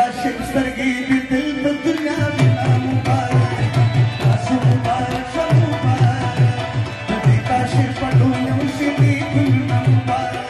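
Live folk music: a rubab and a keyboard play the melody over a steady hand-drum rhythm.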